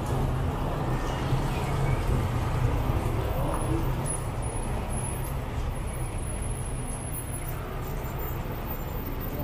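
Road traffic: vehicle engines running in a steady low rumble that slowly grows a little quieter.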